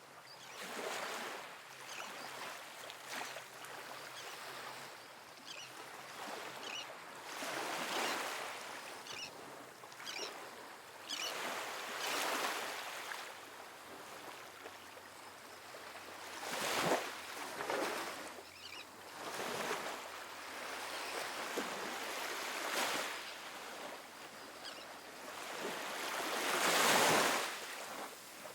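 Small ocean waves breaking and washing up a sandy beach, one soft surge of surf after another, the biggest near the end.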